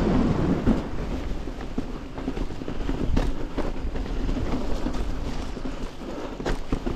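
Canyon Torque mountain bike riding a dirt trail: tyre rumble and wind on the microphone, louder in the first second as it comes off a wooden footbridge. Several sharp knocks of the bike going over rocks stand out.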